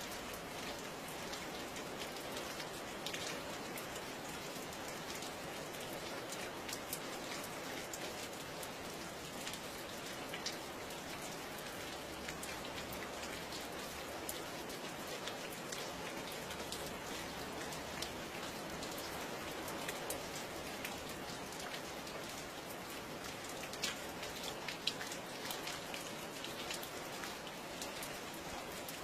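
Steady rain falling on a surface, a constant hiss with many small drop ticks and an occasional louder drip.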